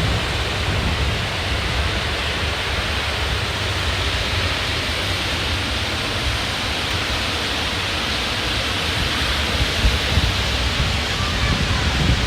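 Ocean surf breaking on a beach in big waves, a steady rush of noise, with strong wind rumbling on the microphone.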